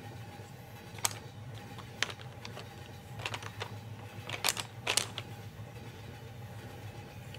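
Coloured pencils clicking against each other and a metal pencil tin as they are picked up and put down: a handful of sharp clicks, busiest about halfway through, over a steady low hum.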